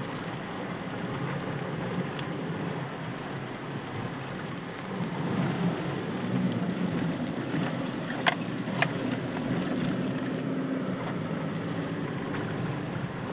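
Car driving on a wet, rough dirt road, heard from inside the cabin: steady road and engine noise that gets louder about five seconds in, with two sharp clicks a little past the middle.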